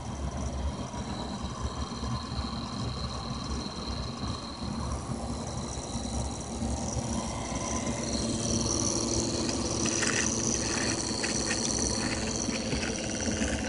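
Homemade pulse motor running, its rotor spinning past pulsed drive coils: a steady low hum under thin, high whining tones. It grows louder about eight seconds in, with a fast rapid pulsing and a few short clicks near the end.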